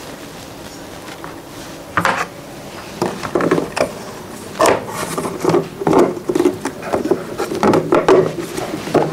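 A lid being set and pressed onto a fluted storage box that hides a power strip. There is one sharp knock about two seconds in, then a run of light, uneven knocks and rubbing as the lid is worked into place.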